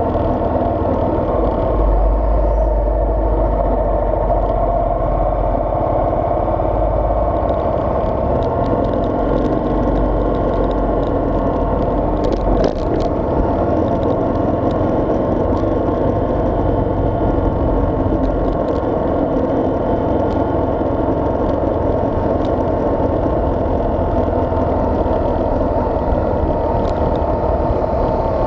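Steady engine and road noise of a moving vehicle, with a short clatter about twelve seconds in.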